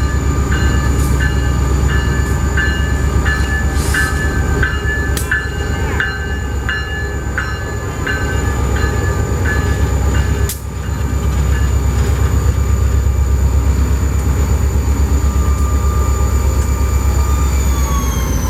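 A New England Central Railroad diesel locomotive running close by, with a heavy pulsing rumble. A metallic ringing repeats about twice a second for the first eight seconds, and a sharp knock comes about ten seconds in. Steady high whines drop in pitch near the end.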